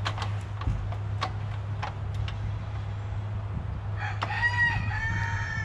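A rooster crows about four seconds in, one long call of about two seconds. Before it come a few sharp clicks, over a steady low hum.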